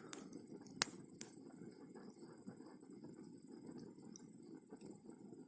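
Wood campfire burning quietly, with three sharp pops in the first second or so over a low, steady hiss.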